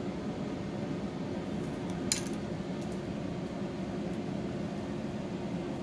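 Steady low mechanical hum of room background noise, with a single light click about two seconds in.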